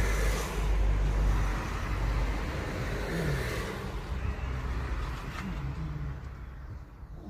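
A motor vehicle passing, its low rumble fading away over the seconds.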